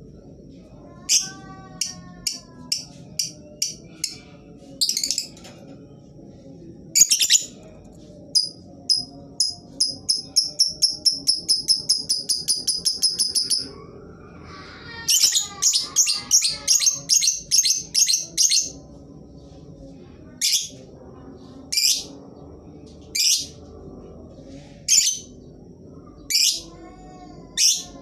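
Lovebird calling in sharp, shrill chirps: scattered single calls, then a long run of fast repeated calls at about two to three a second (the drawn-out "ngekek" chatter), a second quick run, and spaced single shrieks toward the end.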